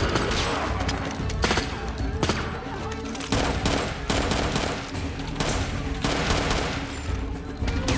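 Rifle gunfire: irregular single shots and short bursts throughout. Beneath it, a film score holds sustained low notes.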